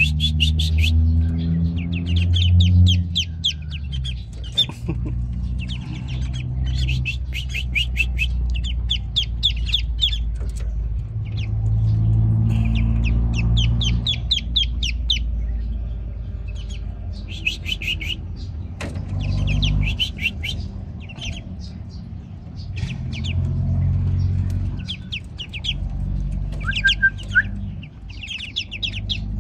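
Newly hatched ducklings peeping: quick runs of short, high peeps that come in bursts every second or two, over a low rumble.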